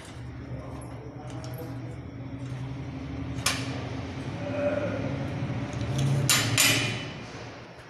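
Metal clinks from clamp and pliers being handled against steel on a welding table: one sharp clink about three and a half seconds in and a quick run of clinks about six seconds in, over a steady low hum.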